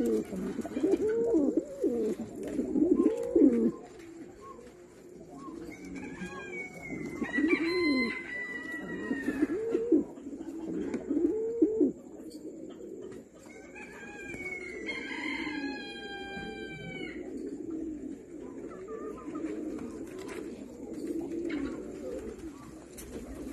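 Domestic pigeons cooing: a run of low, rising-and-falling coos, loudest in the first few seconds and again about a third of the way in. Twice, a higher, drawn-out call lasting two to three seconds sounds behind them.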